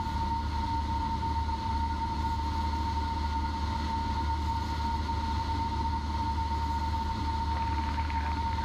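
Cessna 172P engine and propeller droning steadily in flight, heard through the cockpit intercom audio feed, with a constant high-pitched tone running over it.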